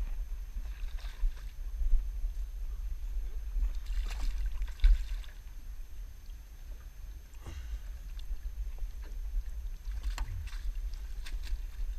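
Wind buffeting the microphone in a steady low rumble, with several short splashes of water as a landing net is dipped into the river and scoops up a hooked fish beside a small aluminium boat.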